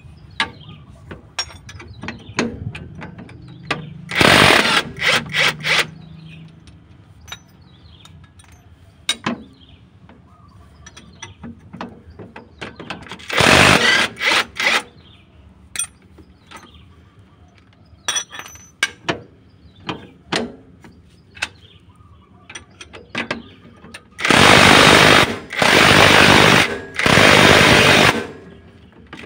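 Cordless impact wrench hammering on the nuts of a propeller-shaft flange, loosening them to take the driveshaft off. It runs in a few short bursts, then three longer ones near the end, with light metallic clinks of socket, bolts and tools in between.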